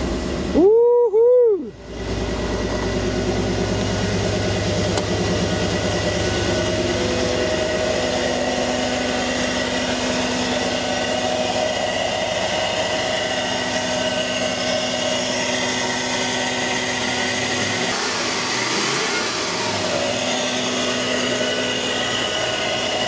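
Toyota 1UZ-FE V8 engine starting through a temporary bridging wire about two seconds in, then idling steadily on its freshly rewired loom.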